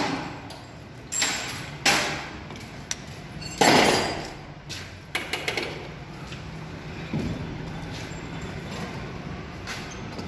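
A handful of loud metal clanks and knocks, spread over the first five seconds or so, from handling a lathe's chuck, chuck key and workpiece. After that the sound settles to a quieter, steady workshop background.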